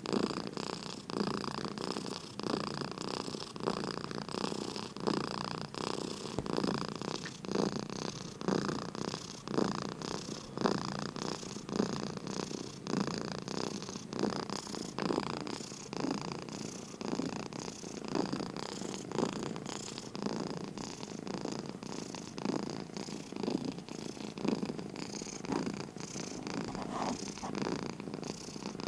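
Domestic cat purring close to the microphone, a continuous rumble that swells and fades with each breath, about once a second.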